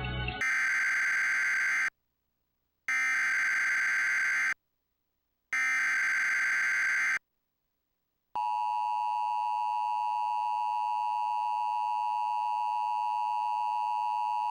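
Emergency Alert System alert from a DASDEC encoder. The SAME header plays as three harsh digital data bursts, each about a second and a half long with about a second of silence between them. About eight seconds in, the steady two-tone attention signal starts and holds. A little music cuts off just as the first burst begins.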